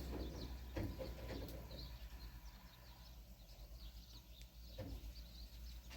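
Faint bird chirps over a steady low hum, with a couple of soft knocks.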